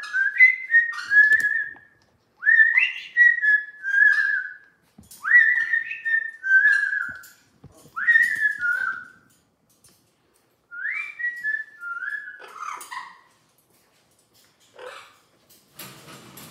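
Amazon parrot whistling a short phrase of sliding notes, each opening with a quick upward swoop, repeated about five times with short pauses. The whistling stops about 13 seconds in, and a few faint taps follow.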